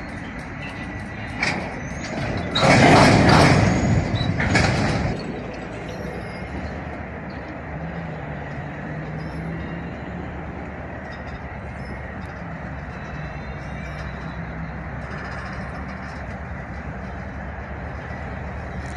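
Freight train rolling slowly past, the cars giving a steady low rumble on the rails. About two and a half seconds in, a loud rushing hiss lasts about three seconds, then the rumble carries on alone.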